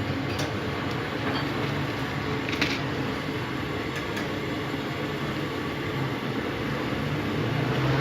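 Steady background hum with a few light clicks, from a small screwdriver working at the stubborn screws of a Nokia 1200 handset.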